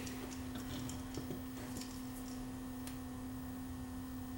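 Steady electrical hum at one constant pitch, with a few faint small clicks from handling the battery leads against the LED board.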